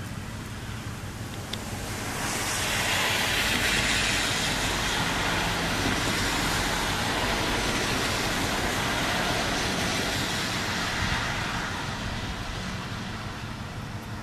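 A passing vehicle: a broad hiss swells about two seconds in, holds, and fades away near the end.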